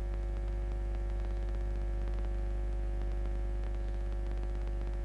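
Steady electrical mains hum with a stack of higher overtones, unchanging throughout.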